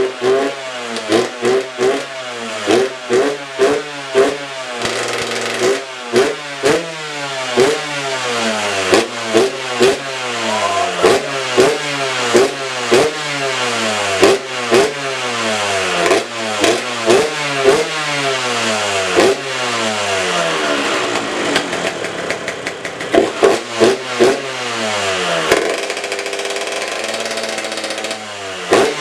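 Kawasaki KX125's two-stroke single-cylinder engine, freshly rebuilt and running, being blipped over and over, the revs rising sharply and falling back. About two-thirds of the way through it settles into steadier low running for a few seconds, then the blips start again.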